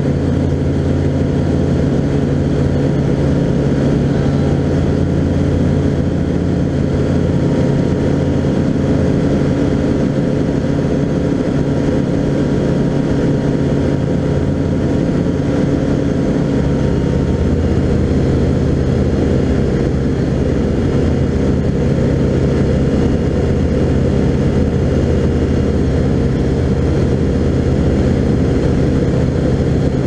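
Skyranger Classic microlight's engine and propeller droning steadily in flight, heard from inside the cockpit, with a slight shift in the low note about halfway through.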